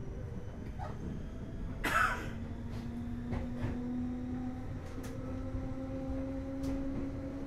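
Interior of a JR East 205 series electric train's motor car as it gets under way: a low hum from the traction motors starts about two seconds in and slowly rises in pitch over a rumble, with a short sharp noise as it begins and scattered clicks.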